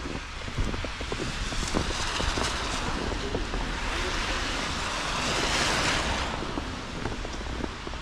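Footsteps crunching in snow under a rushing hiss that builds, is loudest about four to six seconds in, then drops away.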